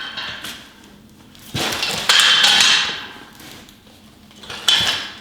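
A cart's metal handle being fitted onto the cart's frame: a sharp metal knock, then a louder clatter with a short metallic ring about two seconds in, and another knock near the end.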